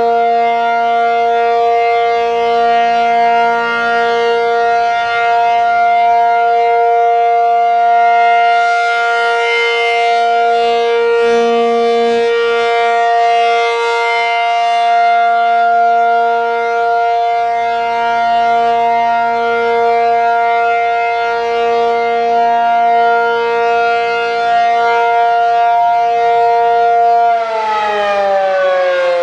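ACA P-50 outdoor warning siren sounding its steady alert tone, two notes held together at one pitch. Near the end the pitch begins to fall as the siren winds down.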